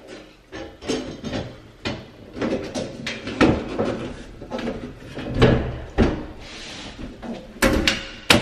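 Metal breaker-panel cover being handled and fitted back onto the breaker box: a run of irregular knocks, clanks and rattles.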